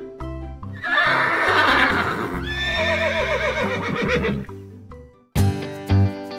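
A horse whinnying: a recorded neigh sound effect lasting about three and a half seconds, a rough fluttering start that turns into a wavering call trailing off, over background music. Near the end the music changes to plucked notes.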